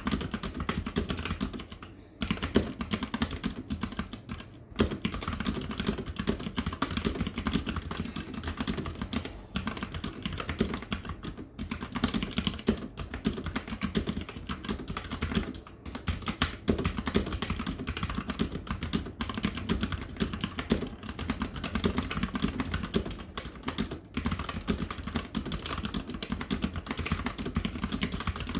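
Fast, continuous typing on a mechanical keyboard fitted with PBT Cherry-profile keycaps, a rapid stream of key clacks broken by brief pauses every few seconds.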